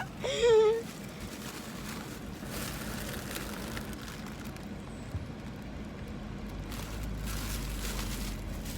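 Steady low rumble of a running vehicle, a little stronger near the end, with a short vocal sound at the very start.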